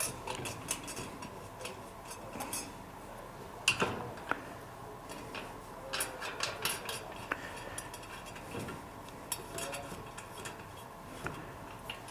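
Metal clicks and clinks of a 19mm spanner and socket ratchet tightening the nuts and bolts on a garden cart's back axle, in short runs of clicks with one sharper knock about four seconds in.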